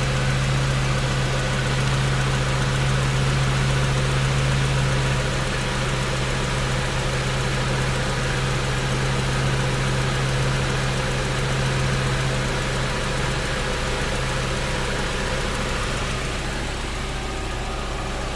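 Honda Prelude's H22A1 2.2-litre four-cylinder engine idling steadily, with a faint high, steady whine over the engine note that fades near the end. This is the odd screech at idle that the owner suspects comes from the transmission or clutch, since it goes away with the clutch pedal pressed.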